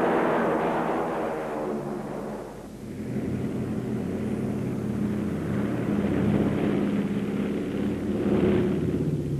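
Piston engines of a biplane flying boat running steadily. The sound dips briefly about two and a half seconds in, then builds again.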